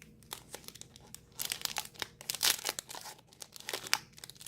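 Packaging crinkling and tearing as a gratitude journal is unwrapped by hand, in irregular crackly bursts starting about a second and a half in.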